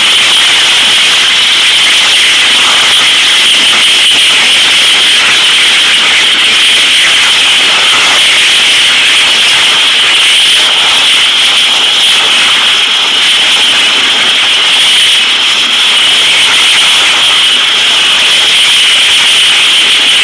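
Propane tank fire jetting a tall column of burning gas, heard as a loud, steady rushing hiss, mixed with the spray of a fire hose stream playing on the tank.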